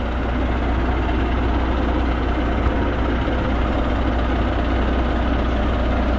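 Large diesel truck engine idling steadily.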